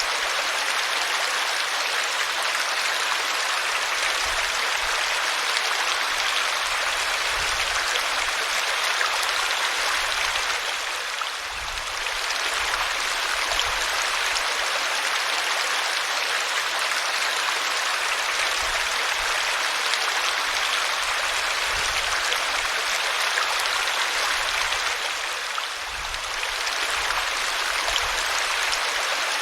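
Waterfall water rushing and splashing steadily, dipping briefly in level twice.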